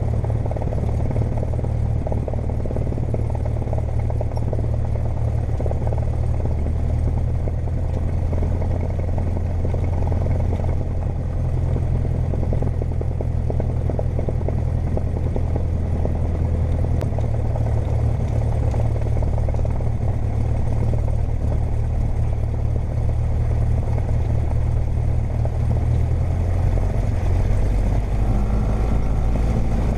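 Cessna 172M's piston engine running at low taxi power, a steady low drone heard from inside the cabin. Its note shifts slightly lower near the end.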